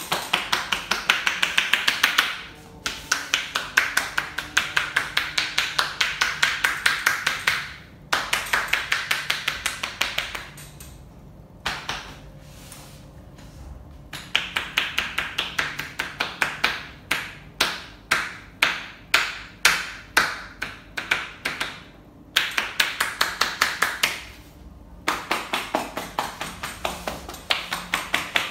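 Hands striking the body in rapid percussive massage strokes. The strikes come several to the second in runs of a few seconds, broken by short pauses.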